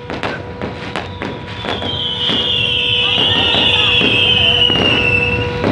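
Fireworks going off overhead: a run of sharp bangs and crackles, with a loud high-pitched hissing whistle through the middle seconds that drops slightly in pitch.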